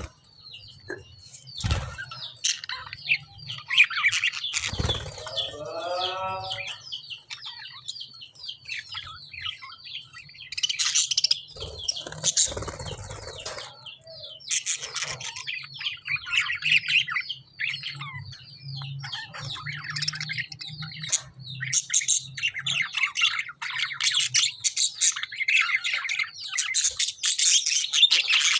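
Several caged lovebirds chirping busily and almost without pause in high, shrill twitters, with a lower, harsher rippling call about five seconds in. A few short thumps break in around two, five and twelve seconds in, over a faint low steady hum.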